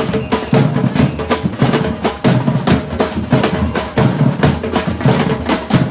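A batucada drum ensemble playing a steady rhythm: deep bass drums under snare drums and other struck percussion, with dense, evenly spaced strokes.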